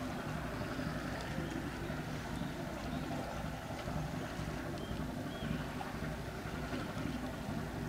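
Steady low drone of a passing coastal general cargo ship's diesel engine.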